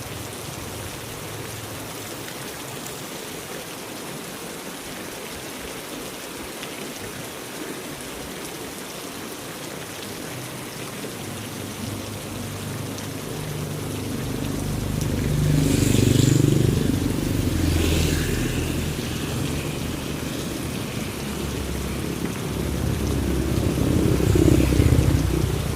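Heavy rain falling steadily, with a low rumble building from about halfway through and swelling twice, loudest near the end.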